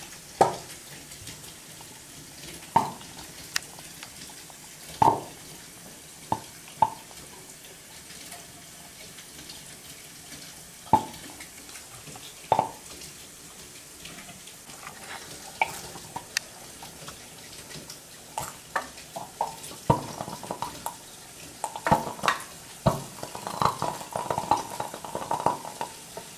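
Sharp pops of acetylene and chlorine gas bubbles reacting in flashes under the water of a tall graduated cylinder, over a steady bubbling hiss. The pops come singly every second or few at first and crowd together thick and fast over the last several seconds.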